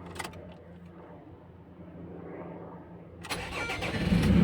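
Ford Ranger diesel engine being started after a fuel filter change. A low steady hum with the key on, then about three seconds in the engine cranks and fires, running loudly from there.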